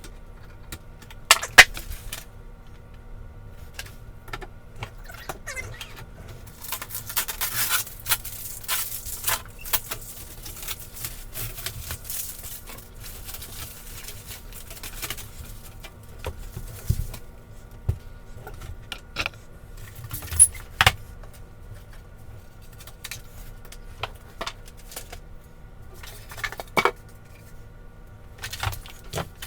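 Unpacking a 3D printer by hand: packaging rustles for several seconds in the middle, with scattered sharp clicks and knocks as zip ties are snipped and parts are handled.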